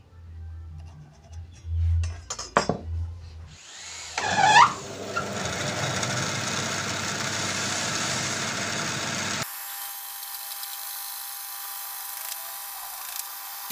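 Band saw cutting a wooden strip: after a low hum and a couple of light knocks, the cutting noise starts about four seconds in and runs steadily. For the last few seconds the sound abruptly thins to a lighter, higher whir.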